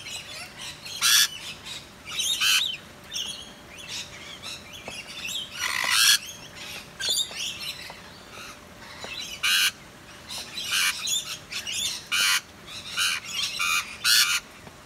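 Rainbow lorikeets screeching: many short, shrill calls at irregular intervals, a few much louder than the rest.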